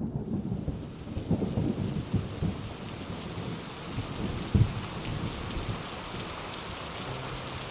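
Steady rain falling, with low thunder rumbling and dying away; one last short rumble about four and a half seconds in.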